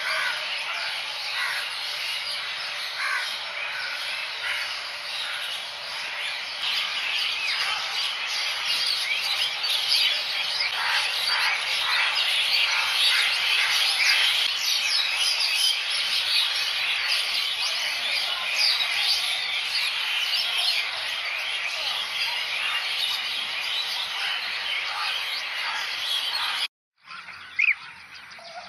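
Pied starlings (jalak suren) calling: a dense, chattering run of whistles, chirps and squawks. It breaks off for a moment near the end and comes back more quietly.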